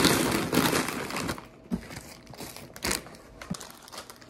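Crinkling and rustling of something being handled close by, stopping about a second and a half in, followed by a few scattered knocks.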